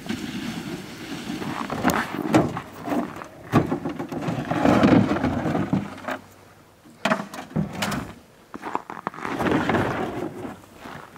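Irregular knocks, clatter and scraping of a black plastic trapping sled and gear being moved about on a pickup truck's tailgate and bed.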